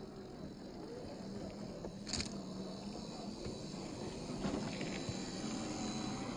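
Electric motor and gear whine of 1/10-scale MST CFX RC crawlers working over rock, with a sharp tick about two seconds in and a few lighter ticks later.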